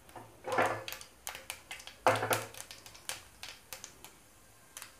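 Mustard seeds popping and crackling in hot oil, with chana dal and urad dal in the pan: irregular sharp pops, louder bunches about half a second and two seconds in, thinning out toward the end. The spluttering is the tempering stage, the sign that the oil is hot enough.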